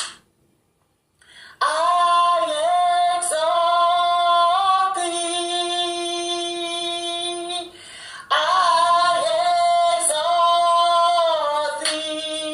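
A woman singing a praise-and-worship song in two long phrases of held, sliding notes, with a brief break between them. The singing comes in after about a second and a half of near silence.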